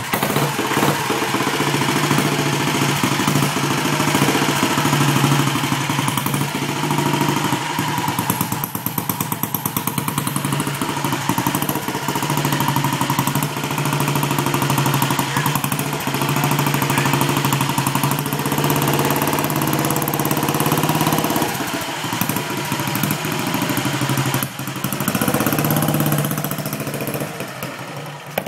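1952 Vincent Comet's single-cylinder engine running steadily, with a short dip in level near the end.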